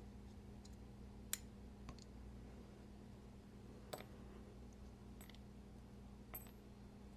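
A few faint, sharp metallic clicks, five in all with the loudest about a second in, as small folding-knife parts and a driver are handled during a screw and pivot hardware swap, over a low steady room hum.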